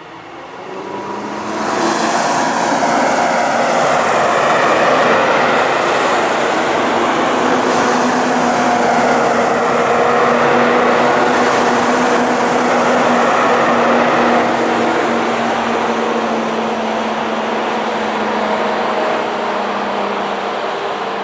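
Long freight train carrying road semi-trailers passing on the line, its wagons running over the rails. The noise builds about a second in, holds steady with a low tone running through it, and slowly eases toward the end.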